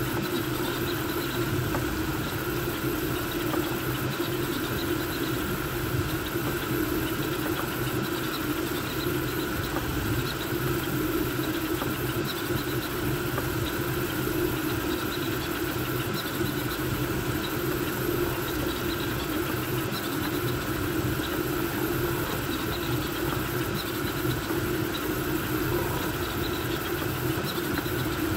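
Voron V2.4 3D printer running a fast print: a steady whir of its cooling fans under the busy, shifting hum of stepper motors driving the toolhead back and forth.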